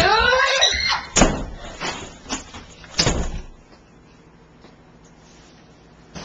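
A child's high-pitched squeal in the first second, then sharp bangs from a wooden house door, the loudest about a second in and another about three seconds in, with lighter knocks between them.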